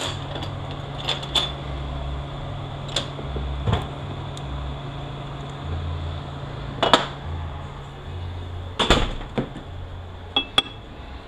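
Irregular metal knocks and clinks, about ten of them, the loudest about seven and nine seconds in, from work with a bushing driver to seat a bushing in a 6L80E automatic transmission case. A couple of short metallic rings come near the end, over a steady low hum.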